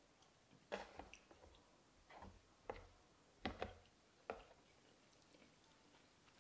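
Soft eating sounds: wooden chopsticks clicking against a plastic takeout container and a little chewing, a handful of short clicks in the first four seconds or so, then near quiet.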